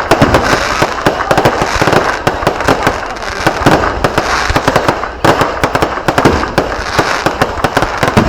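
Fireworks going off in a dense, rapid barrage: many sharp cracks and pops each second running together into a crackling roar, with a fresh loud burst a little over five seconds in.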